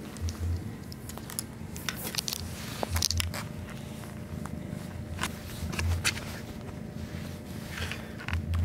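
Irregular soft clicks and crackles with a few dull bumps close to the microphone: camera handling noise mixed with a small kitten scrabbling and pawing at denim and carpet.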